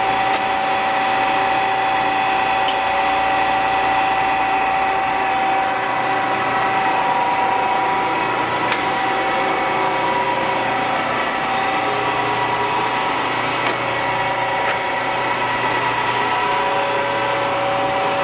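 Warner & Swasey No. 3 turret lathe running under power: a steady mechanical whine of several tones from its gear drive and spindle, with a few faint ticks.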